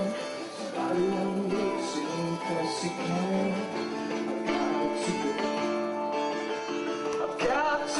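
Live band music: guitar playing under a male and female vocal, with sung lines wavering in pitch throughout.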